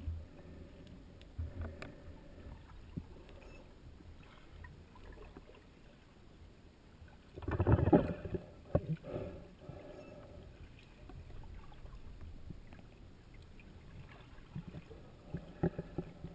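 Muffled underwater noise: a low rumble with scattered faint clicks, and a louder rushing, scraping burst about eight seconds in.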